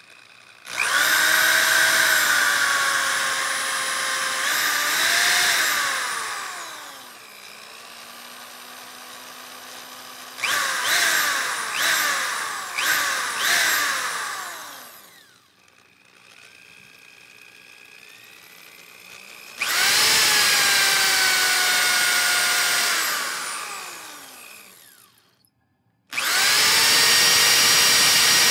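Power drill motor whining as the trigger is squeezed: it spins up, holds speed, then winds down, several times. In the middle come a few short trigger bursts, each rising quickly in pitch. Near the end it spins up again and runs steadily at full speed.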